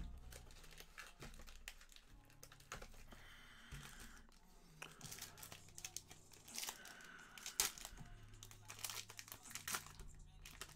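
Foil trading-card pack wrappers crinkling and tearing as they are handled and ripped open by hand, with scattered light clicks and rustles.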